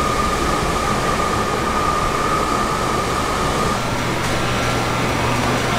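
Industrial fruit-drying machine running: a steady whir with a constant high whine. About two-thirds of the way in it gives way to a different steady machine hum with a low drone.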